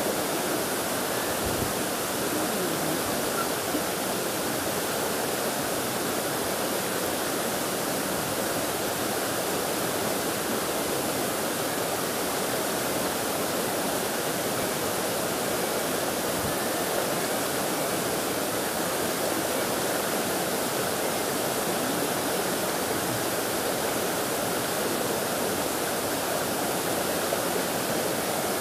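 A shallow, rocky stream rushing steadily: an even, unbroken hiss of running water.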